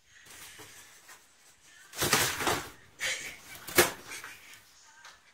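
A cat scuffling inside a cardboard box, which scrapes and knocks: a rough burst of noise about two seconds in, a shorter one after it, and a sharp knock near four seconds.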